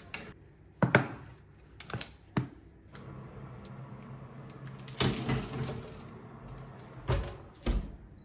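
Metal baking trays and an oven being handled: a few sharp knocks, then a steady low hum from about three seconds in. About five seconds in, a baking tray scrapes on the oven rack, and near the end come two heavy thumps as the oven door is shut.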